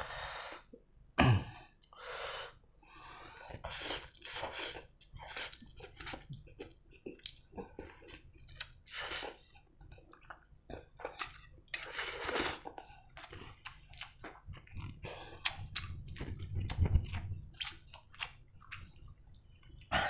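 A person slurping and chewing instant ramen noodles, a long run of short wet slurps and chews. A single loud thump about a second in.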